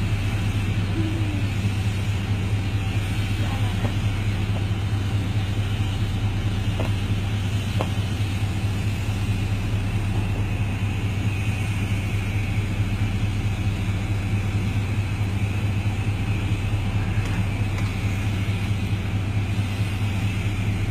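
A running motor makes a steady low hum at an unchanging pitch and level, with an even hiss above it.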